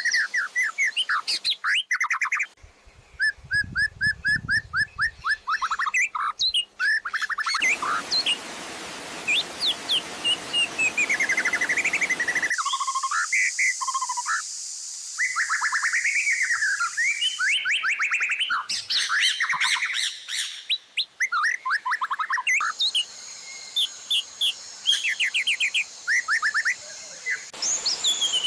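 Songbird training track (masteran) for the white-rumped shama: separate recordings of songbirds are spliced together, changing abruptly about every five seconds. The recordings are of rapid trills, whistles and sharp chirp series, typical of the shama's fill-in repertoire of other birds such as canary and lovebird.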